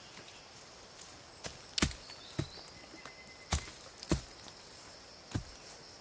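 A hoe chopping into soil: five sharp strikes, mostly in pairs about half a second apart.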